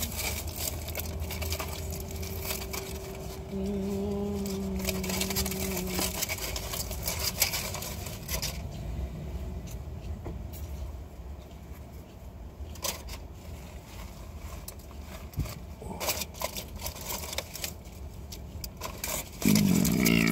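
Aluminium foil wrapper crinkling and rustling in irregular clicks over a low steady rumble inside a car, ending with a loud, drawn-out burp near the end.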